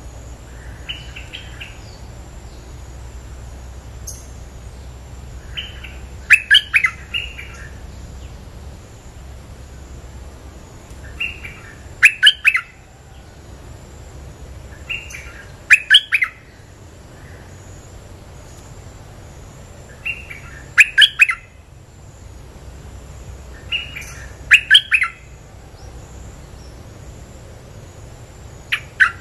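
Caged decoy bulbul (merbah lekir) giving short bursts of rapid chattering notes about every four to five seconds, each loud burst led by a fainter phrase, as a lure call to draw wild bulbuls.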